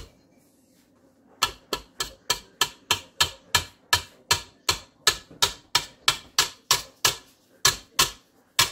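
A utensil knocked repeatedly against a mixing bowl: one sharp knock, then from about a second and a half in a steady run of sharp knocks, about three a second.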